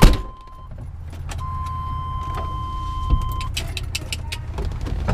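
A sharp knock, then a thin steady electronic tone for about two seconds, then a thump and a run of clicks and clunks as the RV's hood is unlatched and raised in the service bay.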